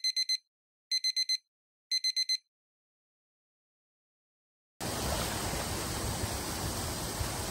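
Electronic alarm-style beeping: three bursts of four quick, high beeps, about a second apart. After a silent gap, a steady outdoor noise haze starts about five seconds in.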